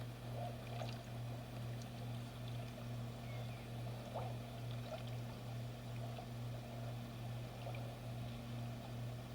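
Boat motor running with a steady low hum that pulses gently, with water trickling and lapping over it and a few small clicks.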